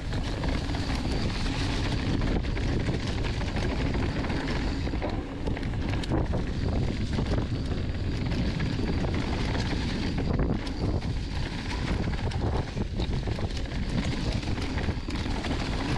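Mountain bike descending a rough dirt trail at speed: tyres running over the ground, with the chain and frame clattering in quick knocks, under wind buffeting the camera microphone.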